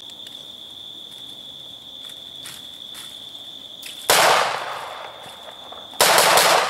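Two rifle shots about two seconds apart, each a sharp crack trailing off over about a second: follow-up shots fired to finish a wounded feral boar. Crickets keep up a steady high trill beneath.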